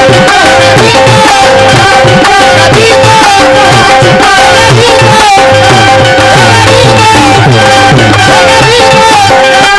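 Qawwali music: tabla keeping a steady, repeating beat under a wavering harmonium melody.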